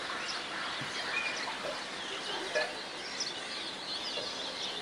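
Village yard ambience: small birds chirping again and again, with a chicken clucking, over a steady background hiss.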